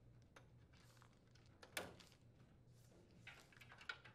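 Near silence with faint rustling and clicks as plastic wire-harness connectors are handled and plugged in. The sharpest click comes a little under two seconds in, with two smaller ones near the end.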